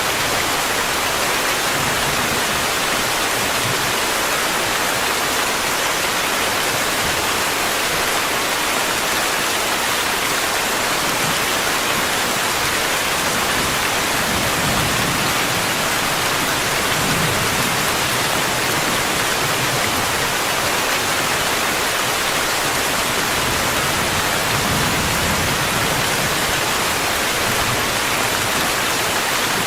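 Steady rainfall, a dense, even hiss of raindrops with no breaks or single loud drops.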